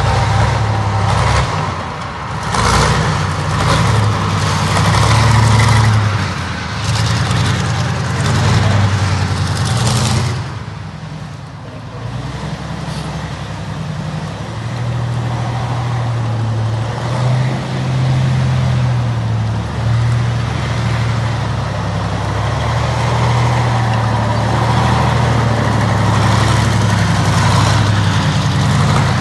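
T-34/85 tank's V12 diesel engine running as the tank drives on a dirt track, with its steel tracks clattering. Louder and rougher through the first ten seconds, then a steadier drone.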